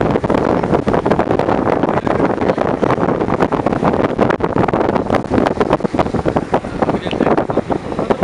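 A jeep driving over a rough dirt track: steady running noise with many quick knocks and rattles from the jolting, and wind buffeting the microphone.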